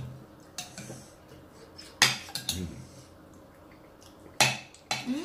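Metal spoons clinking and scraping against a plate and a bowl as people eat: about five sharp clinks, the loudest about two seconds in and another near the end.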